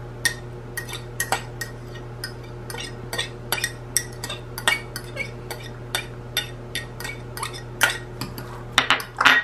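Metal fork clinking and scraping against a small glass bowl as chopped celery is knocked out of it: quick sharp clinks about three a second, with a few louder ones near the end.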